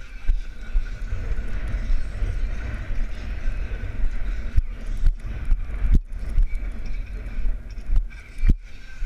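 Wind buffeting a horse rider's action-camera microphone at a lope, over the horse's hoofbeats on soft arena dirt, with a few sharp knocks.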